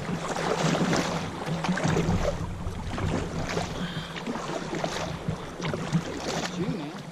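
Kayak paddle blades dipping and splashing in a fast river current, with water rushing around the boat as it is paddled upstream.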